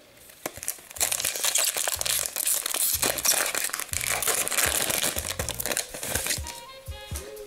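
Foil wrapper of an Upper Deck hockey card pack crinkling as it is torn open by hand and the cards are slid out.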